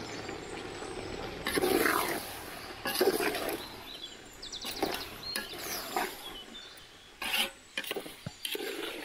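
A metal ladle stirring chopped vegetables in an aluminium pot, with short sharp scrapes and knocks against the metal. Two louder calls stand out about two and three seconds in.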